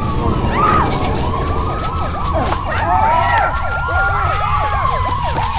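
Eerie siren-like alien sound effect: a loud wailing tone gliding slowly up and down, crowded with fast rising-and-falling chirps, over a steady low rumble.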